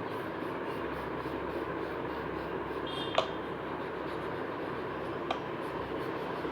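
Steady background hiss, with two short sharp clicks: one about three seconds in and a fainter one about two seconds later.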